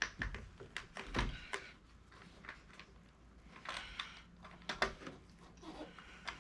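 Small plastic and foam RC-plane parts being handled and fitted together: a scatter of light clicks and knocks, with a short stretch of rustling a little past halfway.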